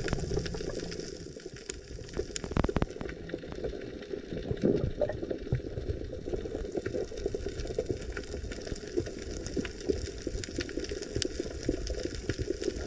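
Water bubbling and sloshing, with many scattered crackling clicks.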